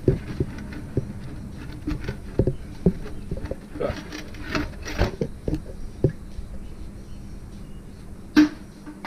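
Irregular clicks and knocks of hand work on a radiator hose and its fittings in a Jeep Cherokee XJ's engine bay as the hose is worked free, with a sharper knock near the end. A faint steady hum runs underneath.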